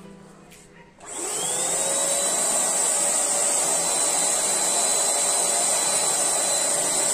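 Electric paint spray machine switched on about a second in: its blower motor whines up to speed and then runs steadily, with a high hiss of air as black paint is sprayed from the gun.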